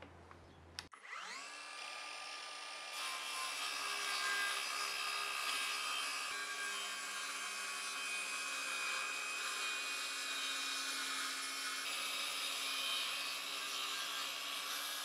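Kress 20V cordless circular saw with a 165 mm 24-tooth blade switched on about a second in, its motor whine rising quickly to speed. The blade then cuts steadily along a plywood panel in one long pass.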